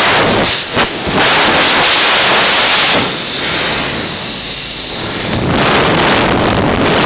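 Air rushing with a loud hiss into a partly evacuated tank through a hole punched with a knife, heard from inside the tank. The hiss drops for a couple of seconds around the middle, then comes back up.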